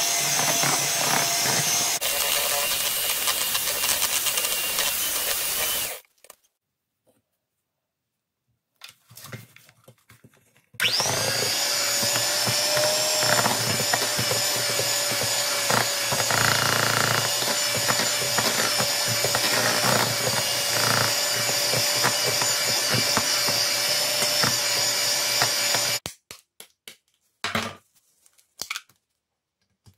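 Electric hand mixer running, its beaters whirring through chocolate cake batter in a steel bowl with a steady motor whine. It stops about six seconds in, starts again about eleven seconds in with a rising whine as it spins up, runs steadily, and stops a few seconds before the end, followed by a few light knocks.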